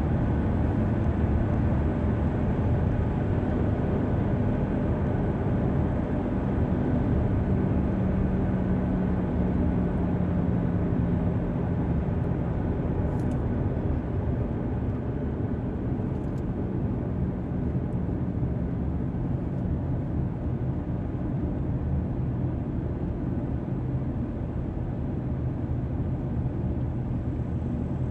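Car driving at highway speed: steady engine and tyre noise, with a low hum that swells and falls slightly in pitch between about seven and twelve seconds in.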